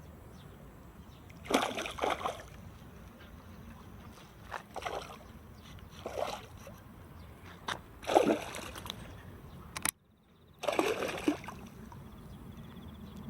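Water splashing in five short bursts over a steady low background, with a moment of silence about ten seconds in.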